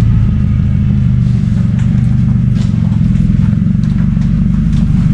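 LS V8 (408 stroker) in a GMC C10 pickup idling steadily and loudly, with a few light clicks on top.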